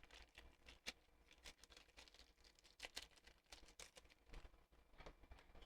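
Faint, irregular small clicks and taps of puzzle-box pieces being handled and tried in place.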